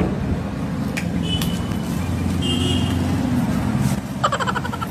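Street traffic, with a motor vehicle engine running steadily. A short honk-like tone sounds near the end.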